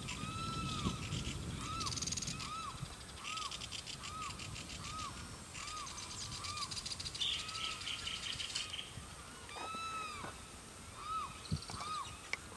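A wetland bird giving a long series of short arched calls, about one every three-quarters of a second, with a brief pause about nine seconds in. Behind it, patches of high rapid trilling come and go.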